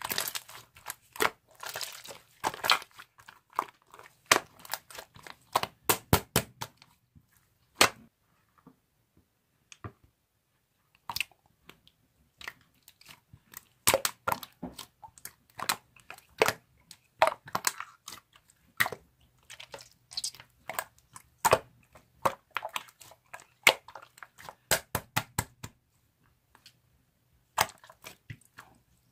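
Slime being squeezed, stretched and poked by hand, giving crisp irregular pops and clicks as trapped air bursts, in quick clusters with a pause of a few seconds about a third of the way in.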